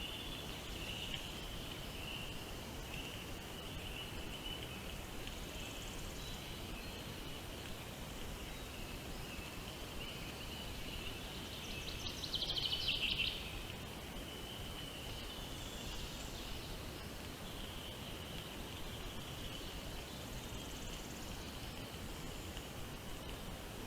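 Steady high-pitched insect drone with scattered bird chirps. About twelve seconds in, a louder, rapid chattering bird call lasts about a second.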